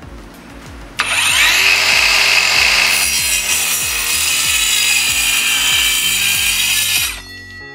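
Akaido AKCS125BL 21V cordless 5-inch circular saw starting up about a second in and cutting freehand across an 18 mm finger-jointed rubberwood board, running steadily for about six seconds and stopping shortly before the end. Faint background music runs underneath.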